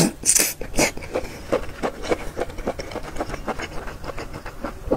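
Konjac noodles slurped up into the mouth in a quick noisy rush, then chewed steadily with wet mouth clicks about three times a second.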